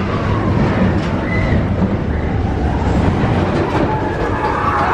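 Roller coaster train of Expedition Everest running along its track through a dark section, a steady loud rumble and clatter.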